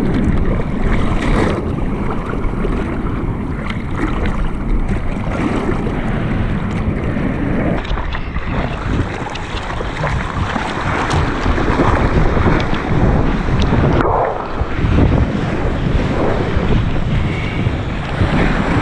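Surfboard being paddled hard through choppy water: repeated hand strokes splashing and water rushing along the board, with wind buffeting the microphone.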